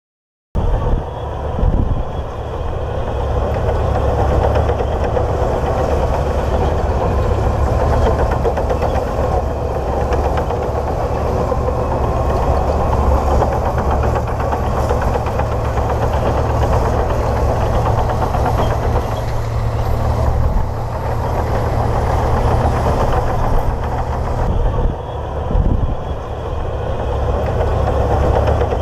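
Komatsu D58P bulldozer's diesel engine running steadily, with a couple of brief louder bumps, one near the start and one near the end.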